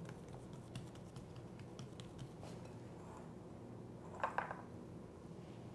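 Faint light taps and rustling of fingertips pressing a round of dough flat on a stone countertop, over a low steady hum. About four seconds in, a short louder scrape as filling is scooped from a glass bowl.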